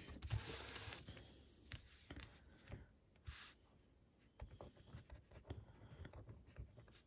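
Faint scratching and light tapping of a Zebra G450 medium gel pen writing on paper, in short strokes.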